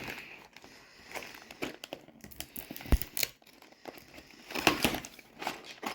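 Packaging being handled and rummaged through: irregular crinkling and rustling with scattered light clicks, and a sharp knock about three seconds in.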